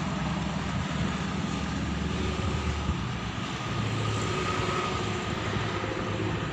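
Diesel train's engine running in the distance: a steady low drone with a faint higher whine over it.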